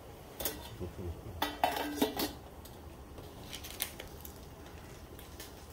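Stainless-steel lid set on a square stainless camping pot, several metal clinks and clanks with a brief ring, most of them about one and a half to two seconds in, followed by a few lighter ticks.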